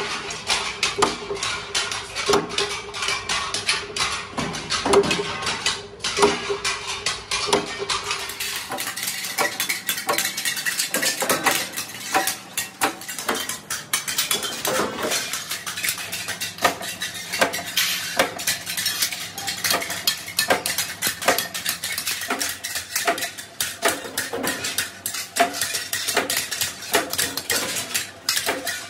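Steel chaff-cutter blades clanking and clinking as they are worked and handled. For about the first eight seconds there are metallic knocks roughly once a second over a steady machine hum; after that come dense, irregular clinks of sheet steel.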